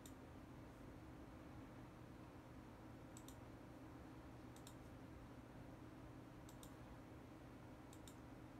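Computer mouse button clicks: about four, each heard as a quick pair of ticks, spaced a second or two apart, over a faint steady hum.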